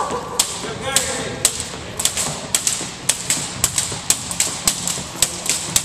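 Double dutch jump ropes slapping a hardwood gym floor in a steady rhythm: sharp slaps about every half second, turning into quick pairs of slaps from about two seconds in as the two ropes strike alternately.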